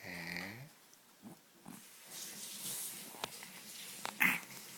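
A young baby's soft breathy snuffling and small vocal noises, with a short sharp grunt near the end.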